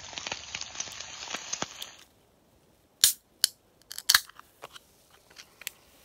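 Fried eggs and bacon sizzling and crackling in a frying pan. This stops abruptly about two seconds in, and a string of sharp clicks and snaps follows, the loudest in the middle and fainter ones after.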